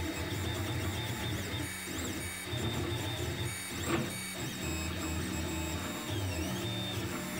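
Monoprice Select Mini 3D printer running a print: its stepper motors whine in short runs of changing pitch, with steady low tones starting and stopping and high tones gliding up and down as the head and bed move. There is one short click about four seconds in.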